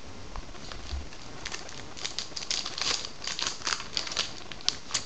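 Wrapper of a 2012 Topps Archives baseball card pack crinkling and crackling as it is handled and torn open, a quick run of crackles through the second half. A soft knock about a second in.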